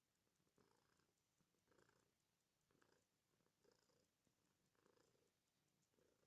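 Domestic cat purring faintly, the purr swelling and fading about once a second with its breaths.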